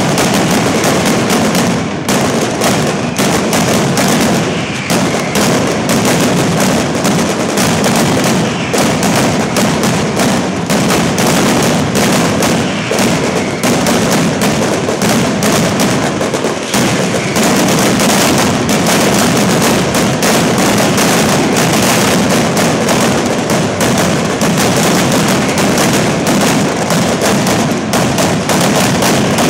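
Mascletà: a dense, continuous barrage of firecrackers going off in rapid succession, crack after crack with no break, loud throughout.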